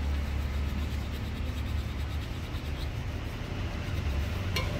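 Steady low rumble of a running motor in the background. Near the end comes one short metallic clink with a brief ring, as gloved hands handle the aluminium crankcase cover of a Honda Super Cub engine.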